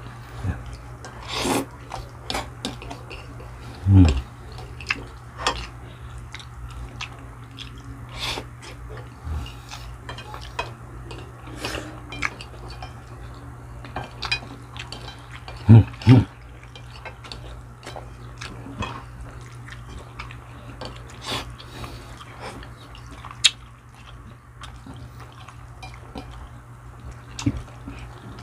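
Cutlery clinking and scraping on plates at a meal: scattered short clicks throughout, with two louder dull thumps, one about four seconds in and one just past halfway, over a steady low hum.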